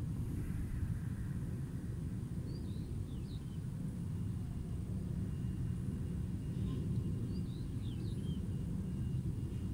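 Steady low rumble of outdoor city ambience, with two faint clusters of quick bird chirps, one about two and a half seconds in and another about seven seconds in.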